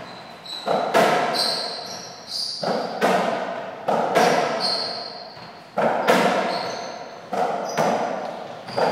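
Softraquet rally: the ball struck by racquets and smacking off the wall and floor, sharp hits coming in quick groups of two or three, each ringing out in an echoing hall. Short high squeaks sound between the hits.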